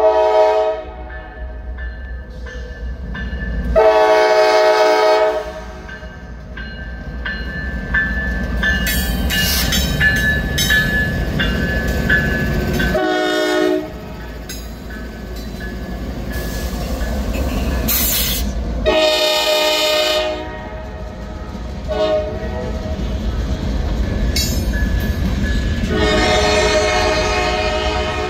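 Norfolk Southern diesel freight locomotive horn sounding a series of long and short blasts for street crossings, over the steady low rumble of the locomotives and freight cars rolling by. A thin high squeal runs in the middle stretch between blasts.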